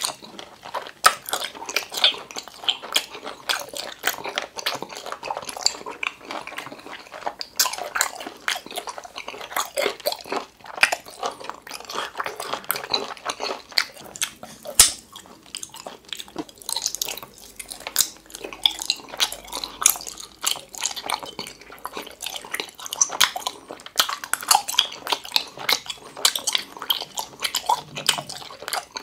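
Close-miked chewing and biting of chewy gummy jelly candy, a steady stream of wet mouth clicks and smacks. One sharp click stands out about halfway through.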